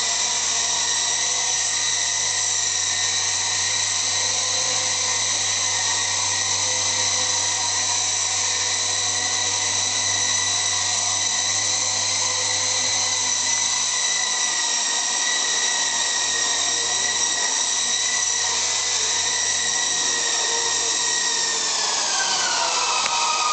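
Revell White Wolf electric RC helicopter's motors and coaxial rotors running with a steady high whine as it hovers. Near the end the whine falls in pitch as the helicopter lands and the rotors spin down.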